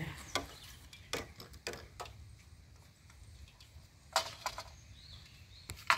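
A few scattered knocks and rustles from a landing net with a freshly caught fish being handled at the water's edge, the loudest cluster about four seconds in.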